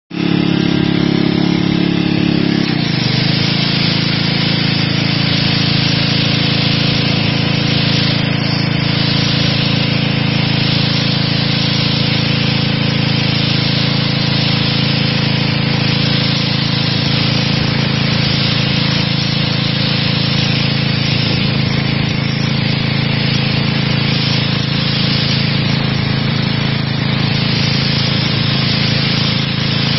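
Petrol-engined high-pressure washer running loud and steady, its engine note under the hiss of the water jet blasting stone paving slabs. It starts suddenly, and the engine note changes slightly about two and a half seconds in.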